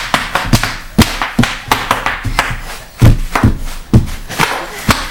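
Bubble wrap popping under a child jumping on it: rapid, irregular sharp pops mixed with thuds of feet landing, the heaviest about three and four seconds in.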